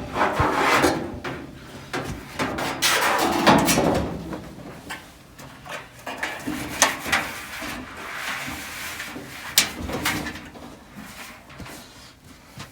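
Irregular scraping, sliding and clunking of sheet-metal dryer parts being handled and shifted into place, loudest in the first few seconds, with a few sharp knocks later on.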